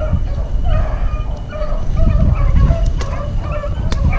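A pack of beagles baying on a rabbit's scent: many short, repeated barks overlapping one another, over a steady low rumble, with two sharp clicks near the end.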